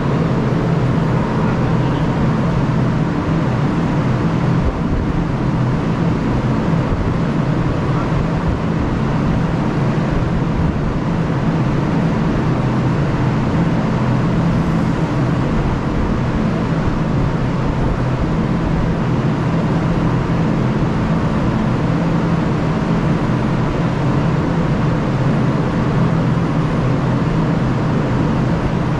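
A ship's machinery running with a steady low hum and a faint steady whine above it, unchanging in level.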